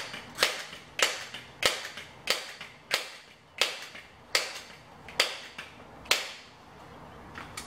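Crosman 1322 multi-pump .22 pellet pistol being pumped up to charge its air: about ten sharp snaps of the pump lever closing, roughly one every two-thirds of a second, coming slightly further apart toward the end.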